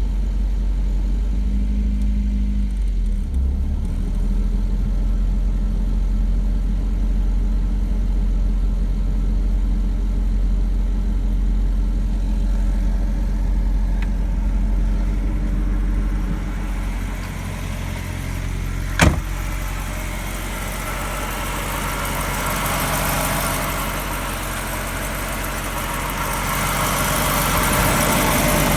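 Car running with a steady low hum. About two-thirds of the way through comes a single sharp click, then a rushing noise that builds and grows louder toward the end. The noise is being checked as a suspected worn wheel hub bearing.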